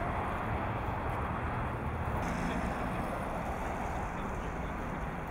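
Steady outdoor city street noise: an even low rumble of road traffic with no distinct events.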